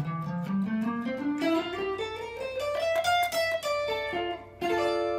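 Electric guitar playing the D minor scale in its first shape: single picked notes climbing steadily in pitch, then stepping back down. A chord is struck about four and a half seconds in and left to ring.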